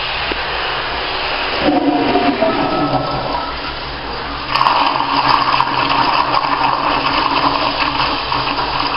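1960s Standard Glenco toilet flushing through its flush valve: water rushing into the bowl and swirling down the drain, with a whistling tone. About four and a half seconds in, the rush grows louder, with a steady high hiss and whine as the valve keeps pouring water through.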